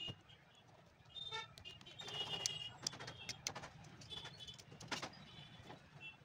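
Small birds chirping in short repeated bursts over a low, steady hum of distant traffic, with a few light clicks scattered through.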